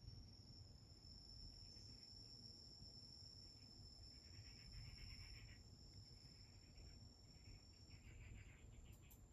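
Near silence: faint room tone with a thin, steady high whine that stops about eight seconds in, and soft pulsing chirps that come and go.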